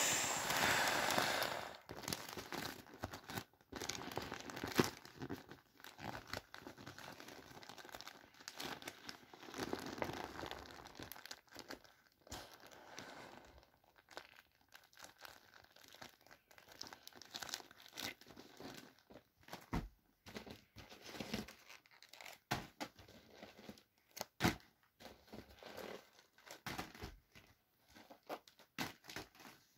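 Air hissing out of the open valve of an inflatable vinyl boat, fading out within the first two seconds. Then the limp vinyl crinkles and crackles in irregular bursts as it is squeezed and folded flat.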